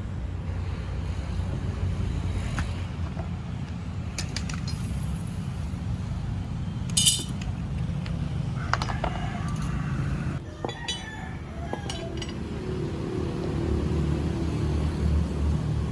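A steady low rumble with a few scattered sharp metallic clinks, the loudest about seven seconds in and a small cluster between nine and twelve seconds.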